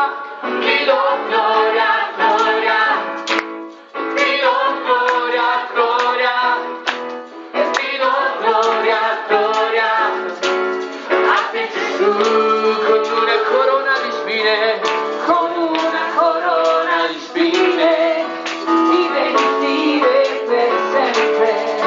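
Live worship song: a congregation singing with a female lead vocalist over an electronic keyboard.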